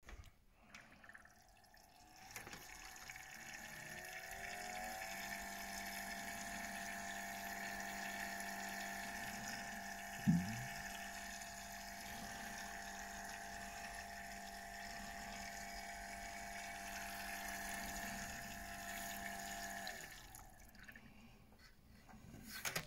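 Water-cooled PC's Barrow CPU block/reservoir combo pump starting: a whine rises in pitch over a couple of seconds, then runs steady with water rushing through the loop, and cuts off about twenty seconds in. A brief thump comes about ten seconds in. The owner reports the combo unit as not working.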